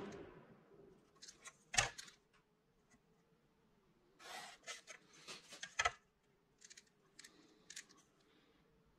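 Felt-tip marker scratching short strokes along a steel rule on painter's tape, in a few quiet bursts, with two sharp clicks as the steel rule is handled.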